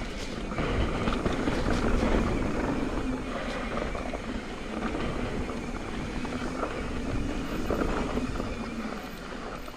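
Mountain bike riding a dirt singletrack trail: a steady rush of tyre and wind noise, with scattered knocks and rattles from the bike over rough ground.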